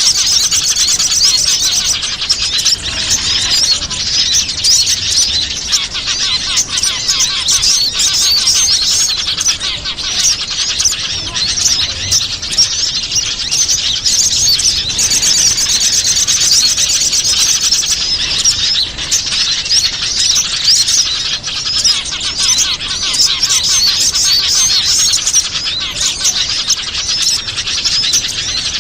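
Dense, continuous high chirping and twittering of many small songbirds, a lure recording used to draw wild small birds in for trapping.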